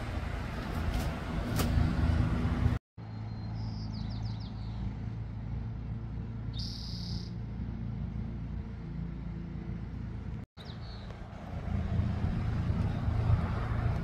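Outdoor ambience: a steady low engine-like hum with a few short bird chirps. The sound cuts out abruptly for an instant twice, about three and ten seconds in.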